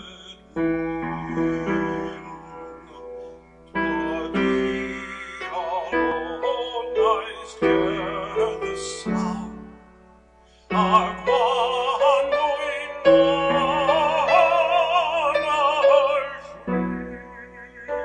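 A solo male voice singing a Welsh hymn with wide vibrato over piano accompaniment. The singing grows fullest and loudest in the second half.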